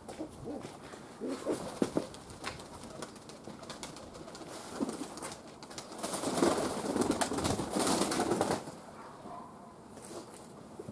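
Domestic pigeons cooing close by. There is a louder stretch of rustling about six seconds in that lasts a couple of seconds.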